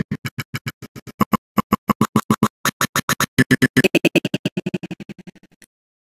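Audio scrubbing in a video editor's timeline: the project's sound plays as a rapid stutter of short clipped snippets, about eight to ten a second. The stutter grows denser and louder midway, then fades and cuts off abruptly near the end as the scrubbing stops.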